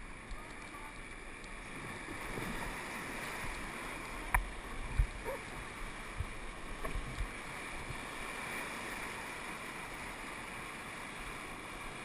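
Whitewater rapids rushing around an inflatable raft in a steady rush of water that grows a little louder after the start. A few sharp knocks come through the middle.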